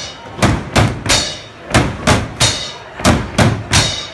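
Drumsticks beating on plastic wheelie bins in a steady rhythm of three quick strokes and a short pause, with a cymbal on a stand struck along with them.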